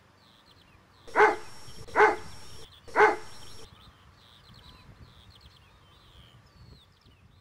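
A dog barking three times, about a second apart.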